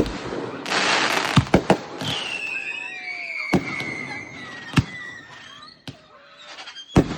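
Fireworks going off: a series of sharp bangs, a brief hissing burst about a second in, and a long whistle that slowly falls in pitch from about two seconds in to about five seconds.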